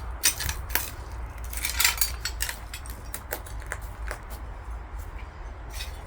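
Irregular sharp crunching and clinking clicks, several a second and loudest about two seconds in, over a low steady rumble.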